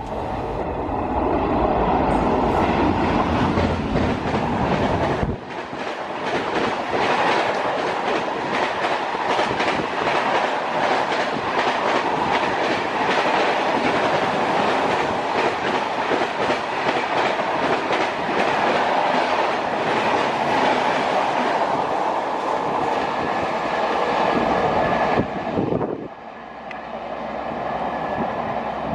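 Express passenger train passing at speed: a loud rush of noise with the wheels clattering rapidly over the rail joints. The sound drops away about 25 seconds in as the last coach goes by, and the train fades into the distance.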